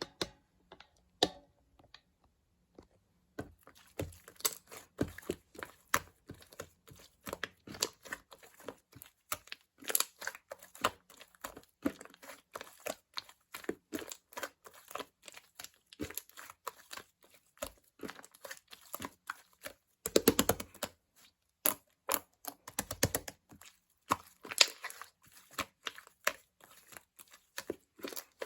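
Close-up crinkling, crackling and tearing of thin plastic or paper being handled, with many small clicks and rustles. It is sparse for the first few seconds, then dense, with louder crumpling bursts about two-thirds of the way through.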